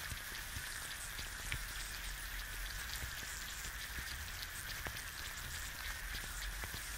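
An egg frying in a pan, heard close up: a dense, steady crackle of tiny pops and ticks as bubbles burst in the white, over a low hum.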